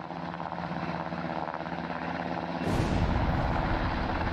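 Helicopter sound effect with a steady rotor drone. About two and a half seconds in, a bomb explosion hits suddenly and leaves a deep low rumble under the drone.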